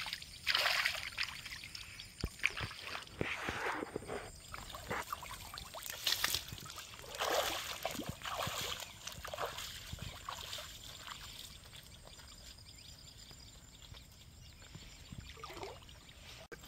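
Shallow river water splashing and sloshing around a landing net holding a large rohu, in irregular splashes that die down after about ten seconds.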